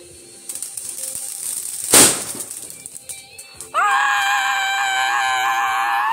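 Consumer firework fountain crackling and hissing, then one sharp bang about two seconds in, followed by a high, slightly wavering whistling shriek that lasts about three seconds.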